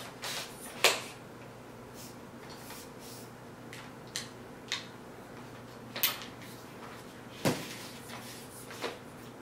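Scattered sharp clicks and knocks of a camera tripod and its packaging being handled and unpacked, about eight in all, the loudest just under a second in and again near the end.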